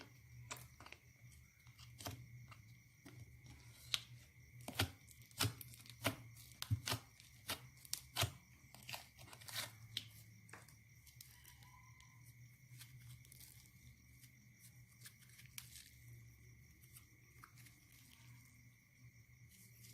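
Hands working slime: stretching and pressing it gives quick sticky crackles and clicks, thick for the first half and thinning out after about ten seconds.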